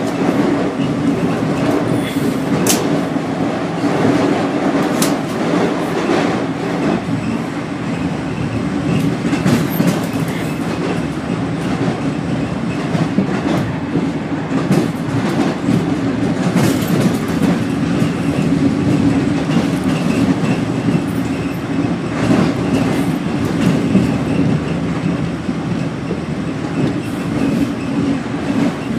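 Inside a CAF-built WMATA 5000-series Metrorail car running at speed: a steady rumble with a constant hum, broken by scattered clicks from the wheels on the track.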